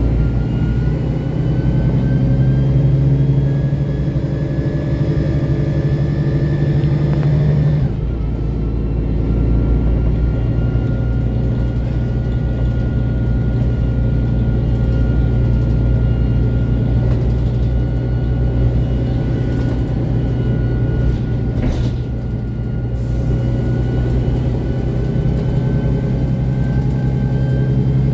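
Mercedes-Benz Conecto city bus's OM 457 hLA inline-six diesel and Voith DIWA automatic gearbox, heard from inside the cabin while driving. The engine and drivetrain whine climb steadily, drop abruptly at a gear change about eight seconds in, then climb slowly again.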